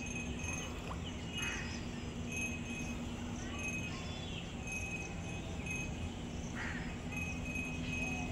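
Outdoor background noise: a steady low hum under a haze of noise, with short high chirps coming every second or so.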